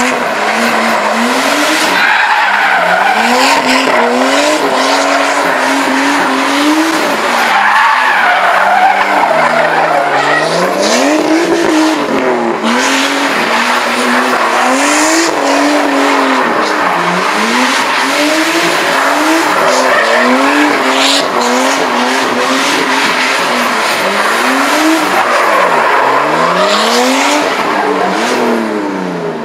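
Nissan Skyline R34 doing donuts: the engine is revved up and down over and over while the tyres squeal and skid continuously.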